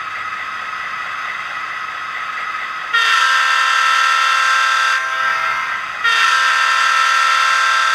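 HO scale SD45T-2 model's LokSound v4 sound decoder playing a multi-chime diesel air horn through its small speaker. Two long blasts, the first about three seconds in and lasting about two seconds, the second about a second after it, over a steady diesel engine sound.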